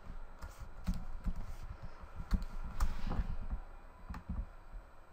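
Typing on a computer keyboard: a short, irregular run of key taps.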